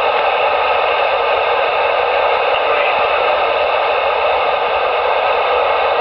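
CB radio receiving with the squelch open: a steady hiss of static from its speaker, with faint steady tones in the noise.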